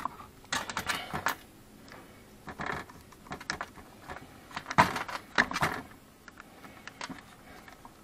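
Worm-drive hose clamps clinking and a screwdriver working on them as rubber filler-neck hoses are fitted together on a sheet-metal bench: irregular small metallic clicks and rattles.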